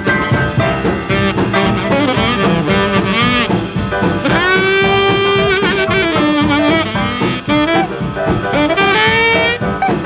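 Background jazz music with a brass lead, likely saxophone, playing a sliding melody over a steady accompaniment.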